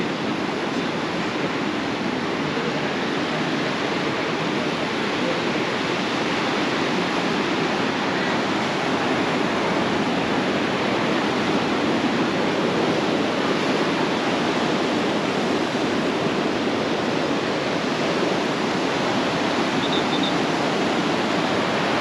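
Steady rushing noise of moving water, with no distinct beats or swells.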